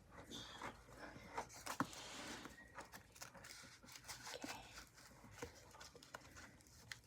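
Faint handling noise: scattered soft clicks and rustling as stainless-steel throwing knives are handled and slid into their sheath, with one sharper click about two seconds in.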